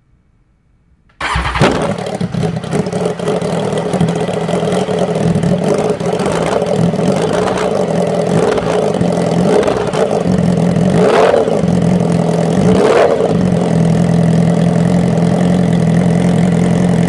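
BMW S1000RR inline-four engine heard right at the tailpipe: it starts up about a second in and idles steadily, with several quick throttle blips that rise in pitch, the last two near the middle the strongest.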